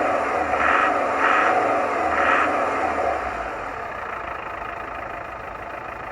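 A custom sound file played through a Tesla Model 3's external Boombox speaker: a pulsing sound, repeated a few times in the first half, that then evens out and fades.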